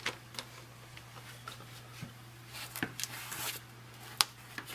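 Quiet handling: a paper manual being lifted out of a plastic case, with a soft rustle and a few small clicks, and a sharper click just after four seconds in, over a faint steady hum.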